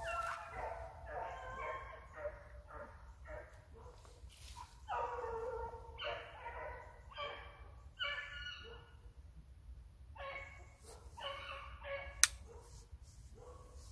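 A pack of Petits Bassets Griffons Vendéens giving tongue on a rabbit's line: repeated high, yelping hound cries, several voices overlapping, coming in bouts. A single sharp click near the end.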